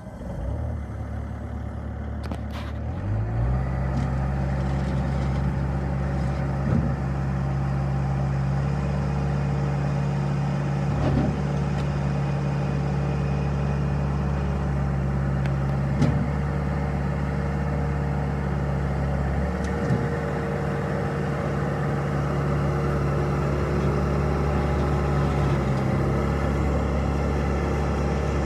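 Bobcat A300 skid steer loader's diesel engine starting up and settling into a steady run about three seconds in. A few short knocks sound over the running engine.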